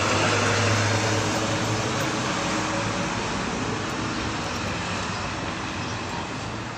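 Street traffic noise: a steady hiss of road noise with a low engine hum that slowly fades.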